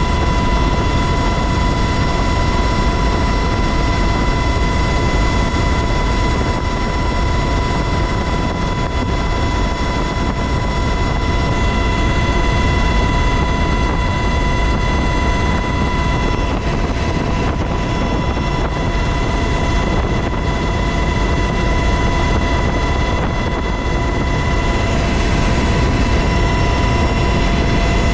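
UH-60 Black Hawk helicopter in flight, heard from inside the cabin at the open door: loud, steady rotor and engine noise with a steady high whine running through it.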